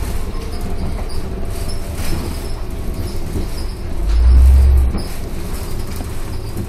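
Ride noise inside the trailer of a Van Hool AG280 articulated bus: a steady low rumble with light squeaks and clicks from the bodywork, and a louder deep rumble for under a second about four seconds in.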